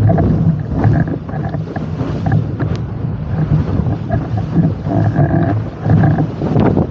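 Heavy wind buffeting the microphone of an action camera on a windsurfing rig, with water rushing and spraying past the board as it planes fast over choppy water. The noise is loud and continuous, with a rough, uneven rumble.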